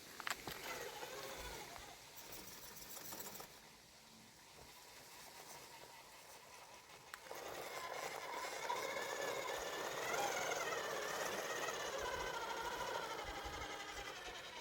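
Small electric motor and gearbox of an RC rock crawler whining, its pitch wavering up and down with the throttle, louder from about halfway through.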